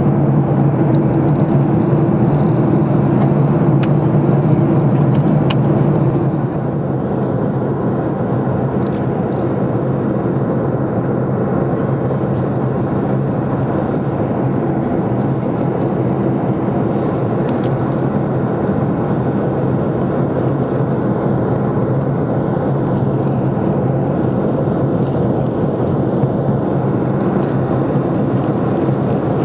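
Cabin noise of a Boeing 737-500 airliner on approach: a steady rush of its engines and the airflow. About six seconds in the level drops a little and a low hum fades out.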